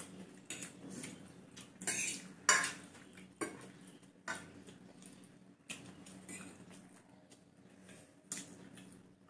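Metal forks clinking and scraping on plates as people eat noodles and chicken: irregular sharp clinks, several seconds apart, with the loudest ones about two to two and a half seconds in.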